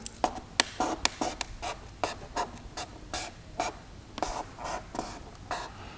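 Irregular light taps and short scratchy strokes of a pen and fingertip on the painted skin of a model jet wing, feeling for a hard point hidden under the surface.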